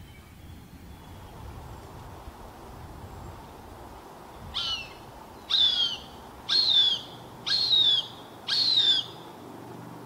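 Juvenile Cooper's hawk calling: five high, whistled calls that slide downward in pitch, about one a second, starting about halfway through.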